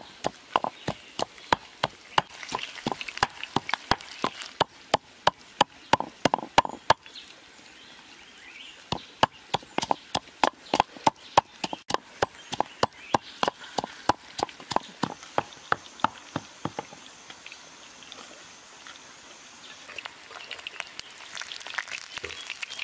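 Pestle pounding chillies in a clay mortar: a steady run of sharp knocks, about two or three a second, with a short pause and stopping about seventeen seconds in. Near the end, fish frying in oil sizzle faintly.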